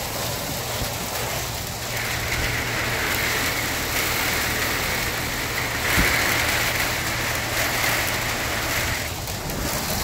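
Heavy hail and rain falling: a steady, dense hiss of hailstones striking the ground and nearby surfaces, with a brighter, higher layer from about two seconds in until near the end.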